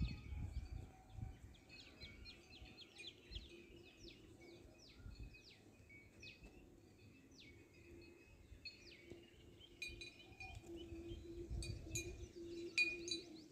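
Faint bird chirping: a series of short, quickly falling notes repeated about once or twice a second, over a low steady hum and a few soft thumps.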